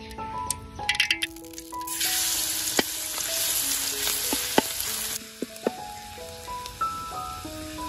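Food frying in hot oil in a pan: a loud sizzle starts suddenly about two seconds in and cuts off about five seconds in. Sharp clicks and knocks of a cooking utensil come before and during it.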